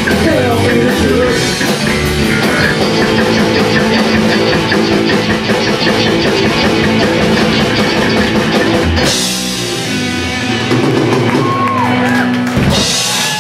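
Live rock band playing loud: electric guitars and a drum kit with cymbals. About nine seconds in the cymbals drop away, leaving held guitar chords, and a last crash comes near the end as the song finishes.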